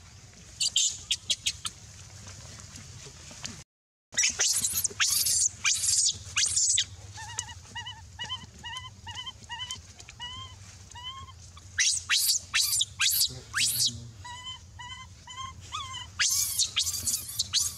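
Baby macaque crying: clusters of shrill squealing screams, with strings of short chirping calls between them at about two to three a second. The sound drops out for a moment about four seconds in.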